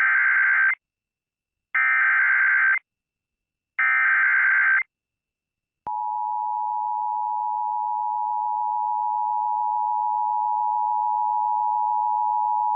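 Emergency Alert System activation: three one-second bursts of SAME header data tones, a second apart, then about six seconds in the steady EAS two-tone attention signal (853 and 960 Hz) begins and holds. Together they signal that an emergency alert, here a severe thunderstorm warning, is about to be broadcast.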